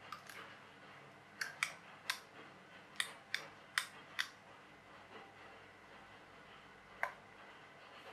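Sharp clicks and taps of the hard red plastic parts of a partly dismantled IKEA LJUSA wind-up torch as they are handled and turned over. There are about nine clicks in the first four seconds and one more about seven seconds in.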